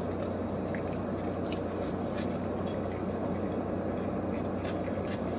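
Steady low hum of a car running inside its cabin, with small scattered clicks of a man chewing a sandwich.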